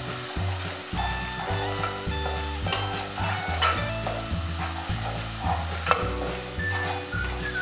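Wooden spatula stirring and scraping thick semolina upma in a nonstick pan, in repeated strokes about once a second over a soft sizzle, as the rava cooks into the boiled water. Background music with sustained low notes plays underneath.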